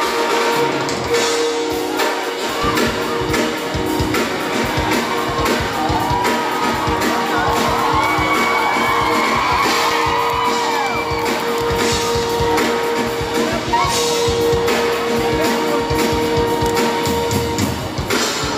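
Music accompanying a circus act: a long held note under a winding melody.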